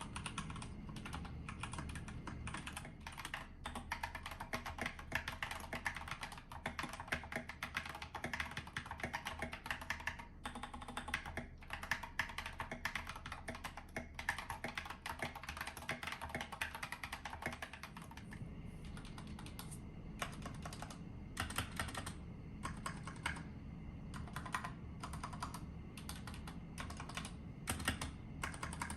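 Typing on an Epomaker GK96S mechanical keyboard with unlubed DROP Holy Panda tactile switches and SA-profile keycaps, in a foamed case. The typing is fast and continuous, with more pauses between keystrokes in the later part.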